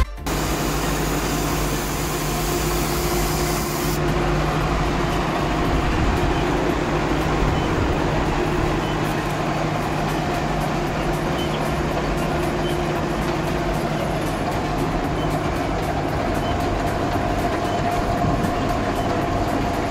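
Truck-mounted water-well drilling rig running steadily during borehole drilling: a constant engine drone with a steady low hum, and a faint higher whine joining about two-thirds of the way through.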